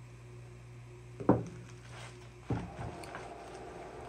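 Two hard knocks about a second apart, the first the louder, as a Jonsered CS2255 chainsaw is handled and turned over on a workbench, with light plastic rattling after the second; a steady low electrical hum underneath.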